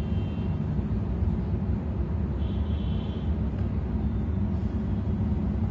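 Steady low rumble with no clear beats or rhythm, and a faint brief high tone about halfway through.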